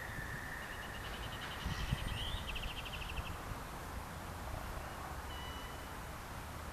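Outdoor ambience: a steady low rumble, with a rapid high trill of quick repeated notes lasting about three seconds soon after the start, and a brief high whistle-like note near the middle.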